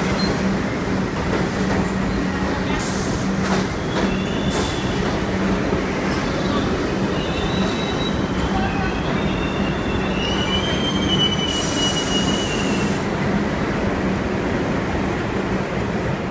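New York City subway 1 train pulling into a station: a steady loud rumble of the cars running past, with high-pitched wheel squeal as the train slows, strongest about two-thirds through. A short burst of hiss comes near the same point.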